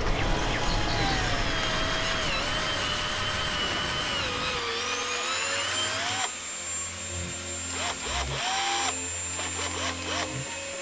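A corded handheld power tool's motor whining, its pitch sagging and rising as it works. About halfway through a higher whine rises and holds steady, with low held tones underneath.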